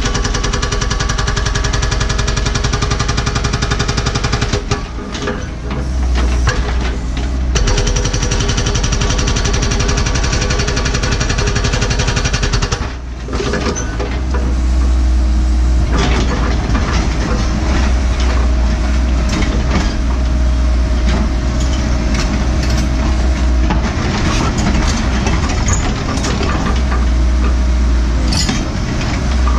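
NPK hydraulic rock hammer on a Cat 314E excavator pounding hard bedrock in rapid, continuous blows, with the excavator's diesel engine running under load beneath it. The hammering breaks off briefly a couple of times, about five seconds in and around thirteen seconds in.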